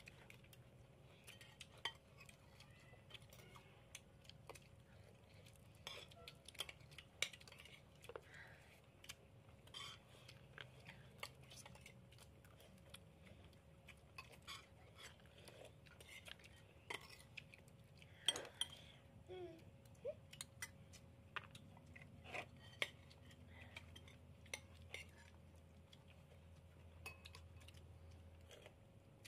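Metal spoons clinking and scraping against ceramic plates and bowls during a meal: scattered, irregular light clicks over a faint steady hum.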